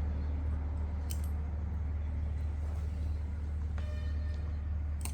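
A steady low hum, with a few light clicks of small kit parts and hardware being handled.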